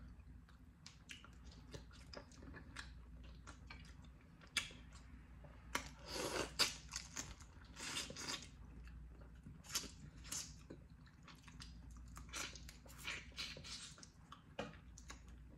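Eating boiled blue crab: fingers picking meat from the shell, and chewing, heard as a scatter of small crackles and clicks, busiest about six to eight seconds in.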